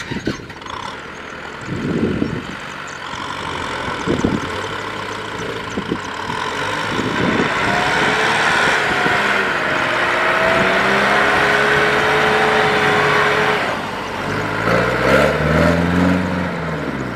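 Kubota M6040SU tractor's diesel engine working hard under load while towing a truck stuck in deep mud, its pitch climbing as it builds up to a sustained loud pull. It eases off about fourteen seconds in, then revs up and back down once near the end.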